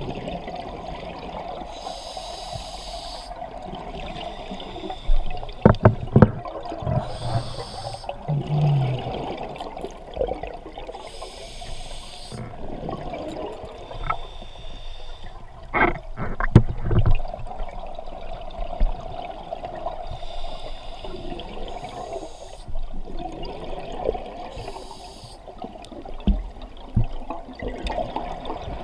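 Scuba diver breathing through a regulator, heard through an underwater camera housing: bursts of exhaled bubbles every few seconds over a steady watery rush, with a few muffled knocks of the housing about six seconds in and again around sixteen seconds.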